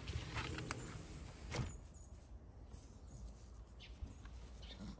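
Quiet outdoor ambience: a few light knocks and clicks in the first second and a half, then faint hiss with a few short, faint chirps.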